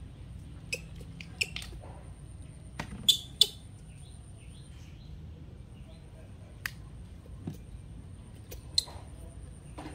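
Small, sparse splashes and drips of water in a plastic basin as a baby monkey is washed by hand. A few short sharp sounds stand out, the loudest a pair about three seconds in, over a faint steady high whine.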